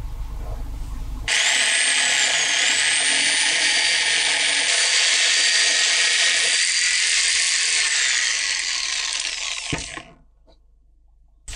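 Corded electric power saw cutting through a plastic fender flare. It starts about a second in and runs steadily with a high whine that dips briefly under load, then stops abruptly near the end.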